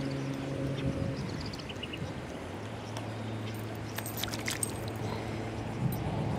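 A small bass thrashing and splashing at the water's surface on the angler's line, with a cluster of sharp splashy clicks about four seconds in. A steady low hum runs underneath.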